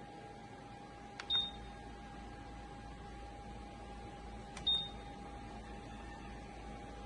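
Two short high beeps from the Nuwave Bravo Pro air fryer oven's control panel, a few seconds apart, each just after a light click of a button press, over a steady faint hum.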